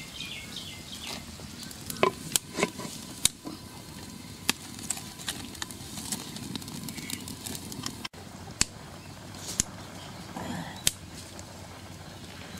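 Spices frying in oil in a metal pan over a wood fire: a low sizzle with sharp pops and crackles scattered throughout, a cluster of louder ones about two to three seconds in.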